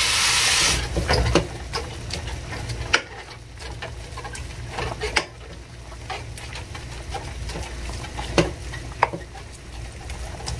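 Raw ground meat hitting a hot metal pan of oil, garlic and onion, with a loud sizzle in the first second that quickly dies down. A wooden spoon then stirs the meat, scraping and tapping against the pan, with a few sharper knocks.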